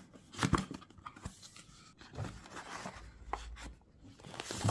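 Cardboard box being opened by hand: the lid of a small drone box lifted and slid, with scraping, rustling packaging and a few soft knocks.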